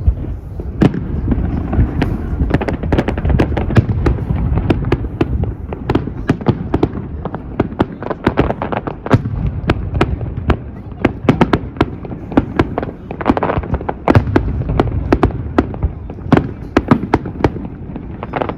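Fireworks display: a rapid, continuous barrage of sharp bangs and crackles, several reports a second, over a steady low rumble.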